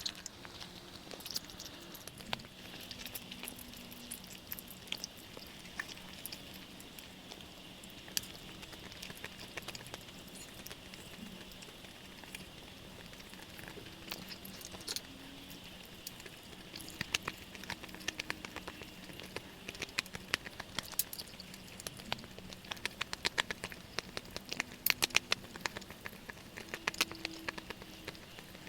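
Close-miked eating sounds of Jordanian mansaf: wet chewing with many sharp mouth clicks and smacks, coming thicker and faster in the last third.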